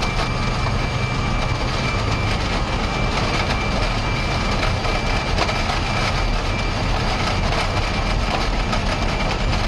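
Flight-deck noise of an Airbus A318 rolling along the runway: a steady heavy rumble from the jet engines and the wheels on the pavement, with a thin high whine held on one note.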